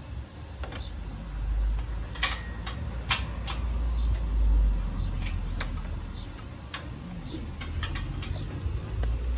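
Scattered sharp clicks and knocks as a Bosch PHO 2000 electric hand planer, switched off, and its power cord are handled and set on a wooden board, over a low rumble. The loudest clicks come two to three and a half seconds in.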